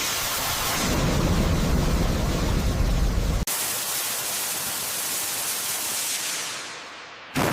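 Loud, steady rushing roar with a deep rumble underneath, which breaks off abruptly about three and a half seconds in and gives way to a hissier rush that thins out toward the end.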